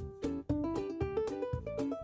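Background music: a light, bouncy tune of quick plucked guitar notes over a steady beat.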